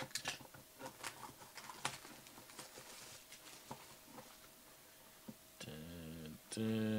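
Foil card pack being torn open and baseball cards handled: quick crinkles, ticks and rustles by hand. Near the end a man's voice sounds twice in short, drawn-out tones.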